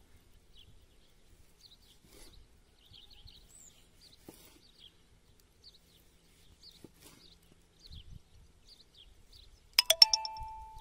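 Knife slicing tomatoes on a wooden chopping board with a few soft taps, while small birds chirp faintly throughout. Near the end comes one sharp, ringing clink of metal or glass, the loudest sound, fading within half a second.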